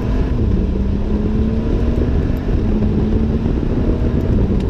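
BMW F30 335i's turbocharged straight-six under hard acceleration through its flapped exhaust, in Sport mode. It drops in pitch at a gear change just after the start, climbs steadily in revs, then shifts again near the end.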